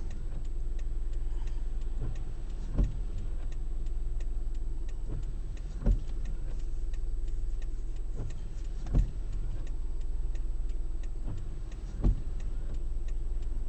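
Inside a moving car: steady engine and road noise, with a short thud repeating about every three seconds and faint rapid ticking.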